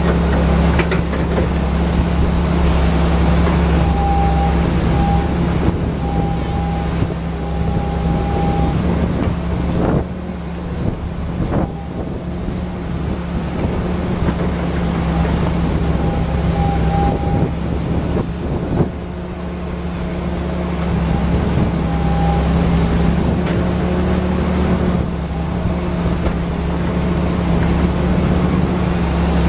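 Wheeled excavator's diesel engine running steadily close by. A thin higher tone comes and goes several times, and there are a few sharp knocks.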